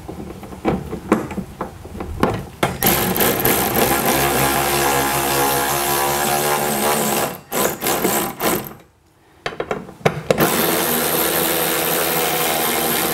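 Cordless power driver running a fastener into the truck's bed rail to mount a bedside rack: a few short trigger blips, then a long steady run of motor whine, a brief stop about nine seconds in, and another long run near the end.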